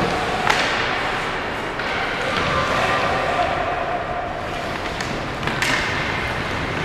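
Ice hockey play in a rink: a steady wash of skating and distant voices, with two sharp knocks from sticks, puck or boards, one about half a second in and one about five and a half seconds in.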